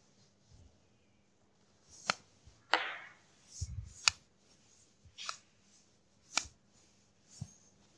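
Whiteboard duster wiping marker writing off the board: short rubbing swishes and sharp knocks of the duster against the board, starting about two seconds in and coming every second or so, with one longer rub about three seconds in.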